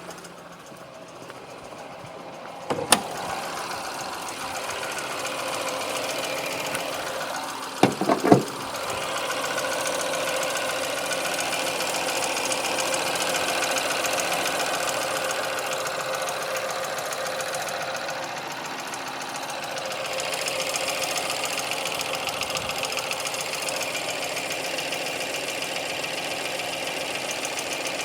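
Ford Focus engine idling steadily with the extraneous noise its owner hears at idle. A sharp click comes about three seconds in and a few loud knocks about eight seconds in.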